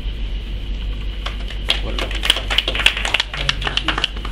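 Scattered hand claps from a small audience, starting about a second in and thinning out near the end, over a steady low hum.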